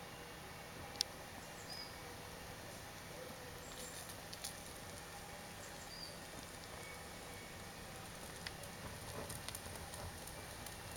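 Wood campfire crackling, with sharp pops now and then and a denser run of crackles near the end.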